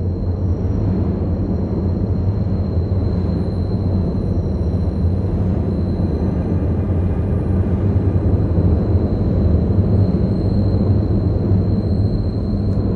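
A steady low rumble with a faint high whine above it, unchanging throughout.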